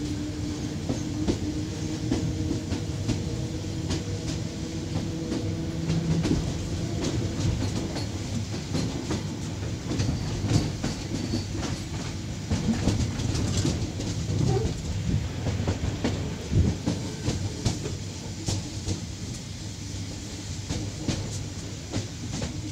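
EPL9T electric commuter train rolling along, its wheels clacking irregularly over rail joints and points with a continuous rumble. A steady hum runs under it for the first several seconds.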